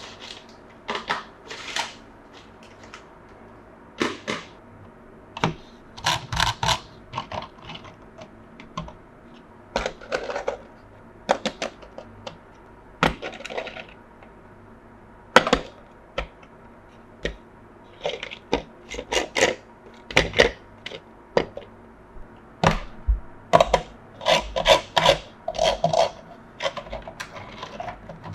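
Hands handling small hard plastic pieces and packaging: irregular clicks, taps and short rustles, busier in the last few seconds.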